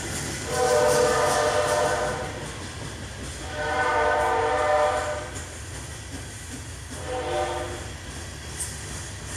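Diesel locomotive multi-chime air horn sounding two long blasts and one short one, the start of the grade-crossing signal. Under it is the steady rumble and clatter of loaded freight cars rolling past.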